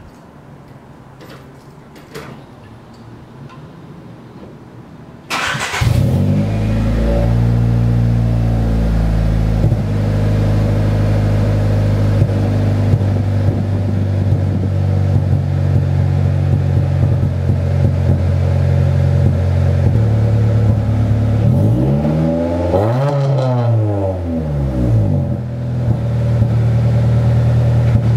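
Honda Civic's D15Z1 1.5-litre VTEC-E four-cylinder, fitted with an eBay exhaust (4-2-1 header, test pipe, big-can muffler), being started: a few small clicks, then a brief crank about five seconds in and the engine catches. It settles from a fast idle to a steady loud idle, is revved once, rising and falling, near the end, and drops back to idle. The owner thinks the exhaust has a small leak.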